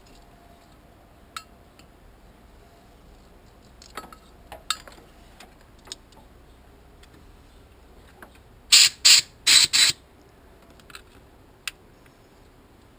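Four quick blasts of compressed air from a portable air blow gun, coming about two thirds of the way through. Scattered light clicks and knocks of handled tools come before them.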